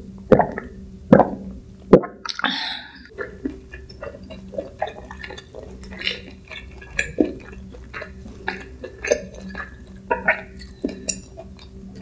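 Three gulps of a drink being swallowed from a glass mug in the first two seconds, followed by a breathy 'ahh' exhale. After that come soft clicks and squishes of wooden chopsticks picking at sticky food.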